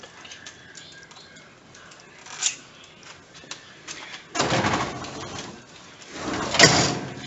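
Kitchen tap water splashing in two short rushes, about a second each, the second louder, as bell peppers are rinsed out under it.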